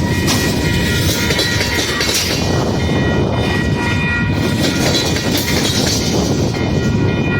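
Buffalo Southern Alco RS-11 diesel locomotive and its train running by in a steady rumble, with faint steady tones above it and heavy wind noise on the microphone.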